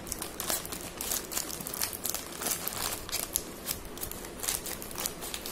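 Plastic courier mailer bag crinkling as it is handled and cut open with scissors, a run of irregular crackles.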